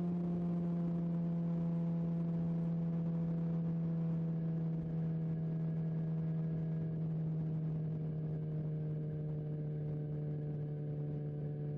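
BMW S1000XR's inline-four engine running at a steady cruise, a strong even note whose pitch slowly drops as the engine speed eases off.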